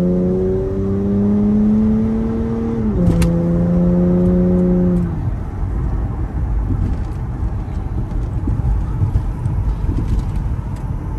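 Acura Legend's engine pulling in gear, its note rising steadily, then dropping sharply about three seconds in as it shifts up. About five seconds in the engine note fades out, leaving steady road and wind noise.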